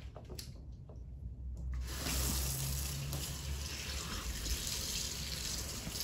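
Faint splashing and knocks of parts in a basin of soapy water, then a kitchen mixer tap starts running about two seconds in and keeps up a steady hiss of running water for rinsing the washed parts.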